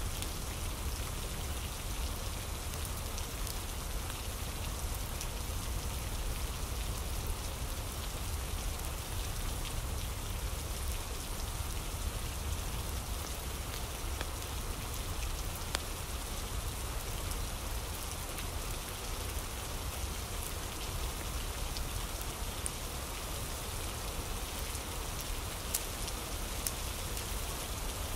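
Steady rain falling, an even rushing patter with a low rumble under it, from a rain ambience track. A few sharp faint clicks stand out here and there.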